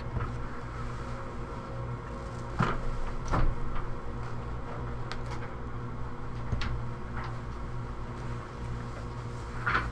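Steady low hum with a few soft knocks and clicks scattered through it, the loudest about three seconds in: handling noise.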